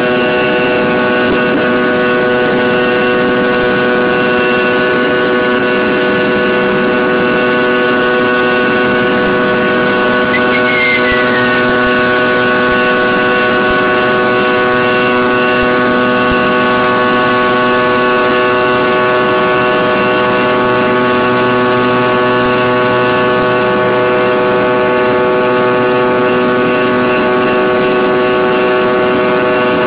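Fokker 100's tail-mounted Rolls-Royce Tay turbofan engines running steadily during the climb after take-off, heard inside the passenger cabin: a loud, even drone with many steady tones layered over a rushing noise.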